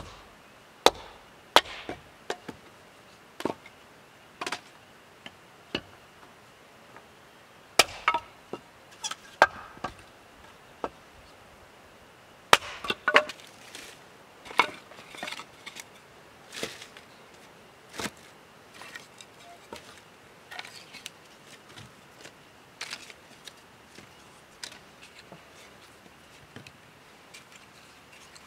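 Wood being chopped and snapped: irregular sharp wooden knocks and cracks, a few loud blows in the first half, then smaller, quicker ones.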